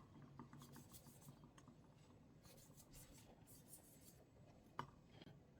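Faint, light scratching sounds, with one sharp click near the end.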